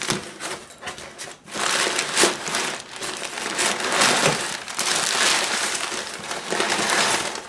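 Crumpled packing paper rustling and crinkling as it is pulled by hand out of a cardboard box; softer at first, it grows fuller after about a second and a half.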